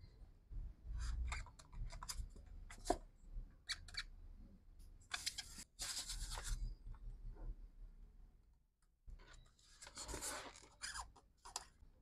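Styrofoam rubbing and scraping against the plastic frame of a square axial fan as the fan is pushed into a cutout in the foam panel and the panel is handled. There are scattered clicks and scrapes, then two longer rough scraping stretches about halfway through and near the end.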